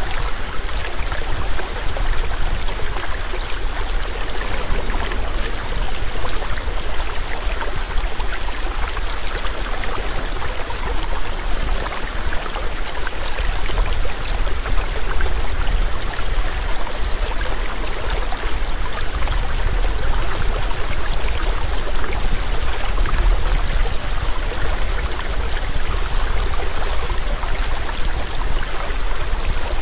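Waterfall rushing steadily, an even hiss of falling water over a low rumble.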